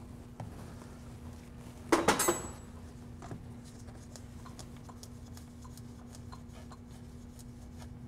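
Metal hand tools clinking at a car's oil drain plug: a quick cluster of sharp metallic clinks with a brief ring about two seconds in, then a few faint ticks.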